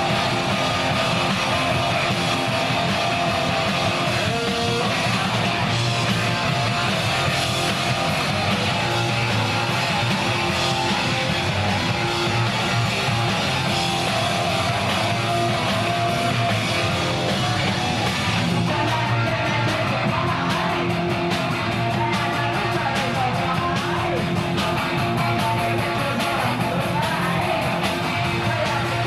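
Loud punk rock music: a band playing with electric guitars, following straight on from a shouted count-in.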